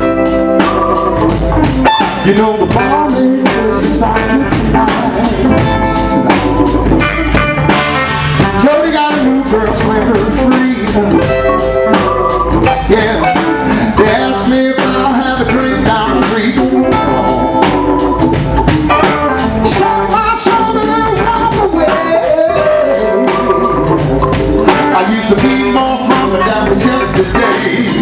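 Live blues band playing amplified, with guitar and drums keeping a steady beat.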